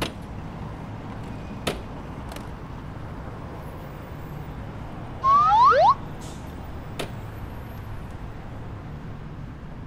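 Steady outdoor background hum, broken about five seconds in by a loud, whistle-like sound that glides sharply upward for under a second. A couple of sharp clicks come before and after it.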